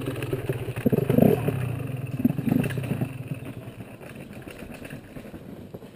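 KTM enduro dirt bike engine riding away, with a few blips of throttle in the first few seconds, then fading steadily into the distance.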